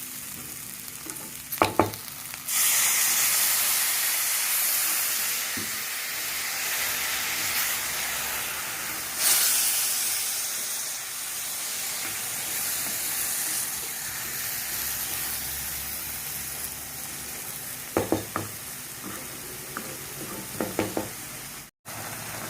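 Water poured into a hot kadhai of okra masala fry sizzles and hisses. It flares up suddenly about two seconds in, surges again about nine seconds in, then slowly dies down. A few knocks of a spatula on the pan come just before the hiss and again near the end.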